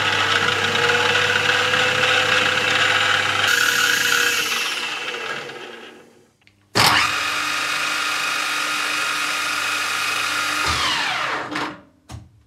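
Optimum MH 22V mini mill's spindle running at speed with a steady whine, switched off about three and a half seconds in and winding down. It starts again suddenly about seven seconds in, runs steadily, then spins down with a falling whine near the end.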